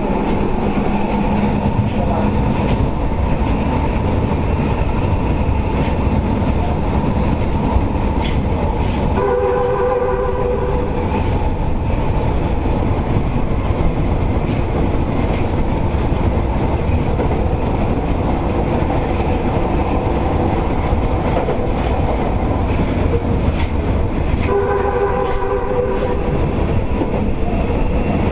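Kita-Osaka Kyuko 9000 series subway train running through a tunnel, heard from inside the car behind the driver's cab: a steady loud rumble of wheels and air conditioning. The train's horn sounds twice, about 9 seconds in and again near 25 seconds, each blast lasting about two seconds.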